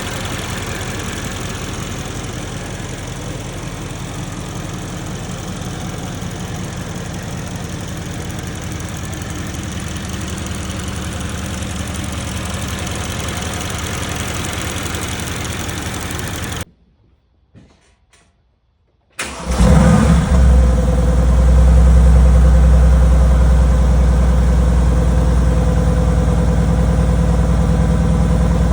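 Mercedes-AMG GT's handcrafted 4.0-litre twin-turbo V8 running steadily, then a quiet gap of about two and a half seconds. The engine then starts with a loud flare and settles into a loud, steady idle.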